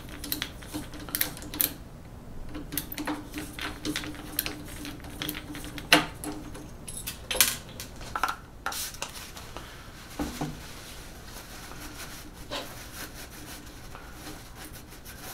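Scattered small clicks, taps and a few sharper knocks of a screwdriver and small metal parts as the screws holding a 3D printer's hot end are backed out and the hot end is lifted off the carriage, with a cloth rubbing over the carriage near the end.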